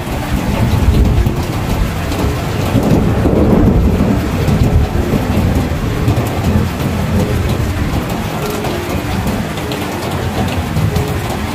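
Heavy rain pouring steadily, with rolling thunder rumbling low underneath. The rumble is strongest in the first few seconds and eases off toward the end.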